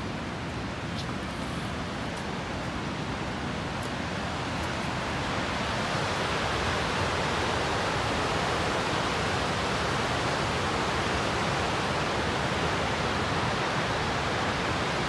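Waterfall rushing steadily, heard from some way off, growing a little louder about six seconds in. A few faint ticks come in the first few seconds.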